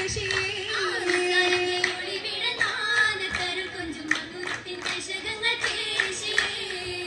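Oppana: female voices singing a Mappila song together, with sharp hand claps in time with the song.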